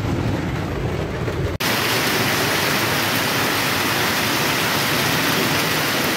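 A low rumble heard inside a car; then, after an abrupt cut about a second and a half in, a steady, dense hiss of heavy rain pouring down.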